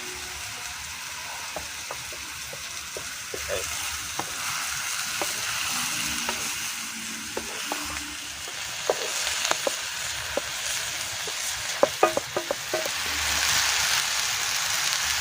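Mushrooms and spice paste frying in a hot pan, a steady sizzle as they are stirred, with scattered clicks and a cluster of sharp knocks near the end, after which the sizzle grows louder.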